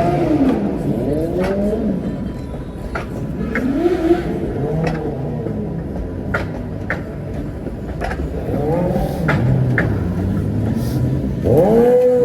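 Street traffic: cars running and passing, with engine pitch rising and falling every few seconds, a steady low rumble, and scattered short clicks.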